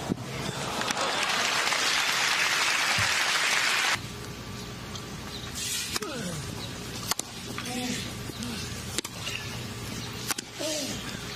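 Crowd applauding for about four seconds, cut off suddenly. Then tennis rackets striking the ball in a serve and rally, sharp hits about every second and a half over a murmuring crowd.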